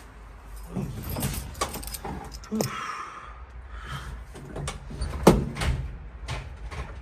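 Truck door being handled and keys jangling, a series of clicks and knocks with one sharp knock, the loudest, about five seconds in.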